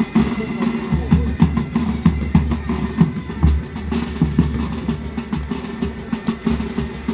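A military band playing with drums: bass drum and snare strokes beat steadily under sustained band notes.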